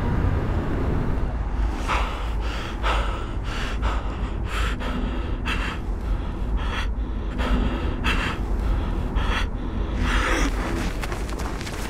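A person's heavy, uneven breathing: a string of sharp gasping breaths, roughly one a second, over a low steady rumble.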